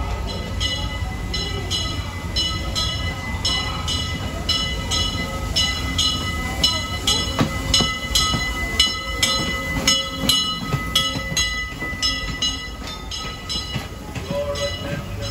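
Disneyland Railroad steam locomotive E.P. Ripley's bell ringing steadily, about two strokes a second, as the train pulls into the station over the low rumble of the locomotive and cars. There is a single sharp knock about halfway through.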